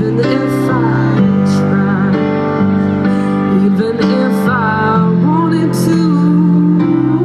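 A woman singing a slow, tender song live, accompanied by sustained keyboard chords that change roughly once a second.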